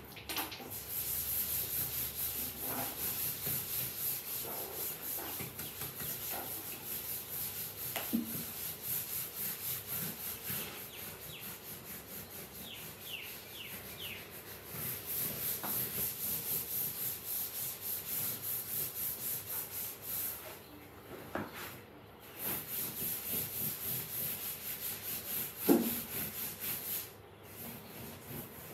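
A sponge scrubbed hard back and forth over a sofa cushion, a fast, even rubbing at about three strokes a second that breaks off briefly a few times. A sharp knock near the end is the loudest sound.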